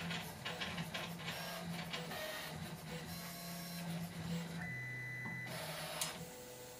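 HyperCube 3D printer's stepper motors, run by A4988 step sticks, whining as they drive the print head at 100 mm/s. The pitch steps up and down with each move, with sharp clicks between moves, the loudest about six seconds in.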